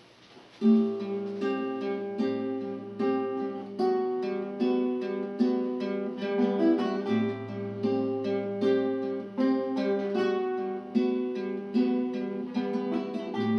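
Acoustic guitar playing chords alone with a steady pulse, with held bass notes that change under them; it starts about half a second in.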